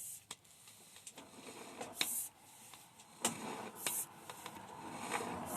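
Sewer inspection camera's push cable and reel being fed down the line: scattered clicks and rubbing, with short hisses about every two seconds.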